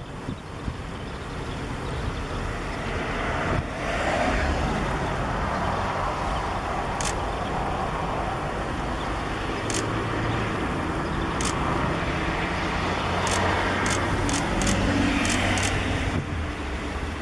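Steady rumble of road traffic, with a few short high-pitched ticks now and then.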